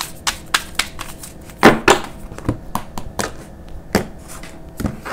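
A deck of tarot cards being shuffled by hand and cut onto a table: a run of light card clicks, with two louder slaps of cards landing on the tabletop a little under two seconds in, then scattered clicks.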